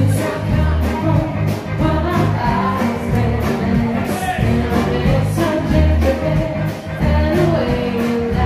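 Live band playing a rock-and-roll style song, with a steady drum beat, bass guitar, electric guitar and a singer.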